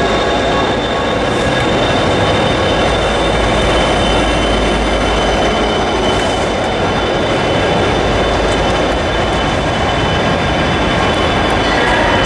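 Direct Rail Services Class 57 diesel locomotives passing close by, their EMD two-stroke V12 engines running with wheel-on-rail rumble, steady and loud, with a few thin high whining tones over it.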